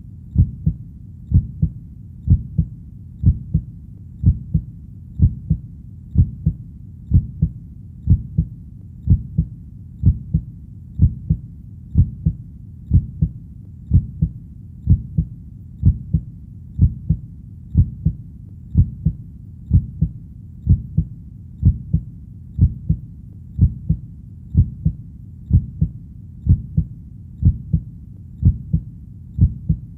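Heartbeat: slow, steady lub-dub double beats repeating evenly, deep and low, over a faint low hum.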